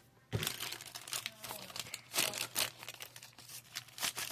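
Toy packaging crinkling and rustling in irregular crackles as it is handled and pulled open.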